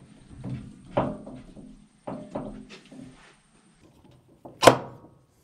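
Steel F-clamps being moved and set against a stainless steel benchtop: a series of knocks and clanks, the loudest near the end with a short metallic ring.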